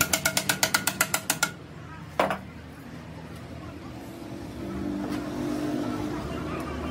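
Hand tools working on a Hino FM1J truck's steel brake pedal assembly: a quick run of about a dozen sharp metallic clicks over a second and a half, then a single ringing metal knock a little after two seconds.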